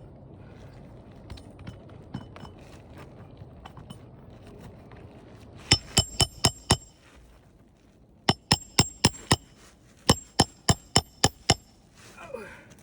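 Hammer blows ringing on metal during shingle roof repair, in three quick runs of about five, six and seven strikes, four or five a second, after a few seconds of quieter scraping and handling.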